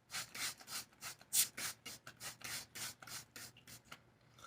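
A quick, uneven run of short rubbing strokes, about two to three a second: hands working through a wet wig's hair.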